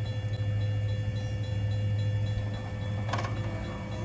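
Railroad grade crossing warning bell ringing in a fast, even repeat as the crossing signals flash for an approaching train, over a low steady hum. A brief clank comes about three seconds in, as the crossing gate arm starts to come down.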